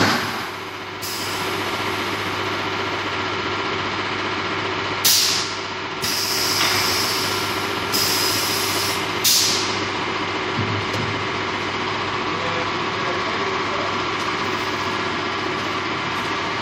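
Steady hum of factory-floor machinery on a solar panel production line, with sharp hisses of compressed air being let out, once about five seconds in and again about nine seconds in, each fading quickly, and stretches of steadier air hiss between them, typical of pneumatic cylinders on automated line equipment.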